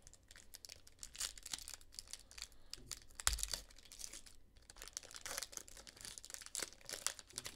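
Foil wrapper of a trading-card pack being torn open and crinkled by hand: a quiet run of crackles and rips.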